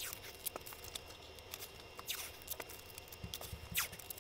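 Painter's tape being pulled off the roll, torn and pressed onto foam, played back at six times speed: a quick run of small clicks and rustles, with two short ripping sounds, about two seconds in and near the end.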